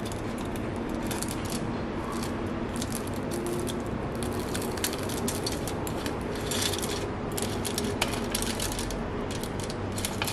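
Fork and spoon tearing into a flaky baked roti prata pastry on aluminium foil: a run of crisp crackles and foil crinkles, with light clicks of the metal cutlery against the foil.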